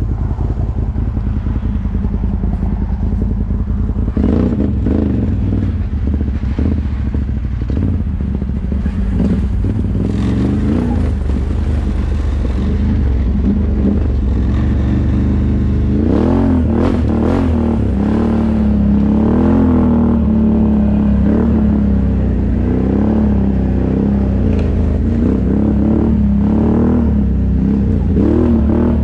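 ATV engines running, revving up and down, with a steady low rumble. The revving picks up about four seconds in and again in the second half.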